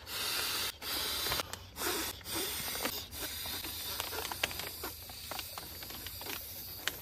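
Air rushing in short rhythmic bursts as an inflatable sleeping pad is pumped up through its valve: about five strokes in the first three seconds, then quieter rustling of the pad with small clicks.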